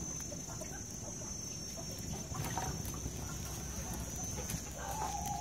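Chickens clucking faintly, with one drawn-out hen call near the end, over a low steady background noise.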